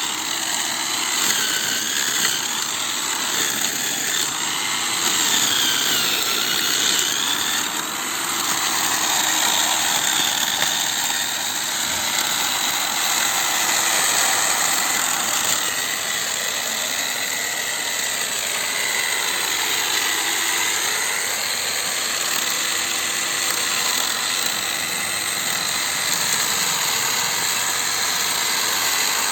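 An electric drill's motor running continuously, driving a homemade grass-trimming cutter, with a whine that drifts up and down in pitch as the speed changes.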